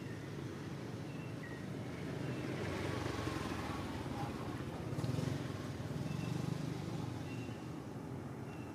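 Outdoor background: a steady low rumble that grows louder for a few seconds in the middle, with faint short high chirps now and then.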